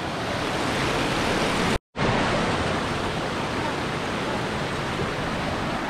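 Water rushing over rocks in a mountain creek and waterfall, a steady hiss that drops out for a moment about two seconds in.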